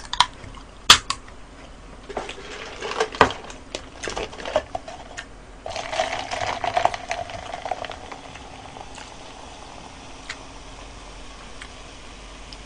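Coca-Cola poured from a can into a paper cup: sharp clicks from the can near the start, then crackling and fizzing as the soda fills the cup, loudest about six to eight seconds in and settling to a faint hiss.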